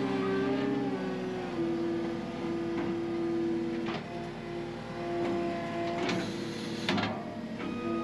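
Skid steer engine running with a hydraulic whine, its pitch sagging briefly and recovering as the loader hydraulics work the grapple. A couple of metal clanks, one about halfway through and a sharper one near the end, as the grapple claw closes on a rusty piece of equipment.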